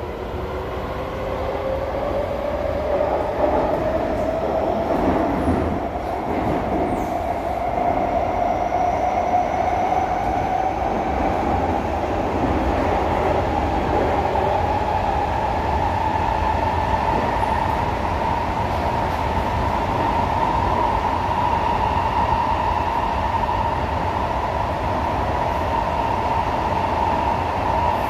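SMRT C151A metro train heard from inside the carriage: the traction motors whine, rising steadily in pitch as the train picks up speed, then holding one pitch at cruising speed over the steady rumble of the wheels on the track.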